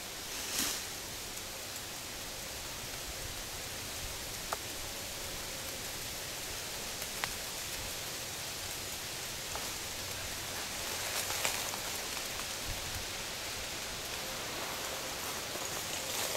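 Steady rustling hiss of a breeze through dry autumn leaves in hardwood woods, with a few faint ticks and a brief louder rustle about half a second in.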